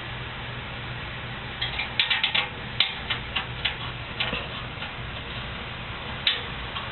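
A quick run of light metallic clicks and clinks, about a dozen between two and four and a half seconds in and one more near the end, from parts and tools being handled while refitting an HVAC blower assembly. Under it runs a steady low hum.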